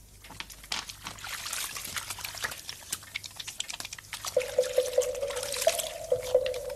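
Liquid trickling with many small splashes. About four seconds in, a steady held tone joins it.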